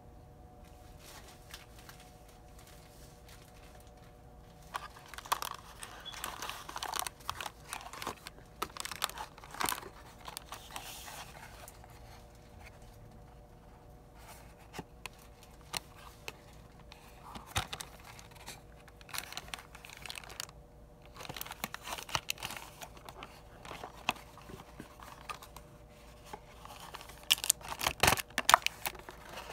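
Cardboard candy box with a clear plastic window being handled: irregular crinkling and crackling of plastic and card, starting about five seconds in, with sharper, louder crackles near the end as the box is pulled open.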